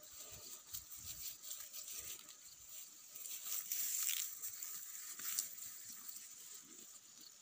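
Cow grazing, tearing and cropping grass in irregular crackly rips, busiest in the middle of the stretch with one sharp snap a little later.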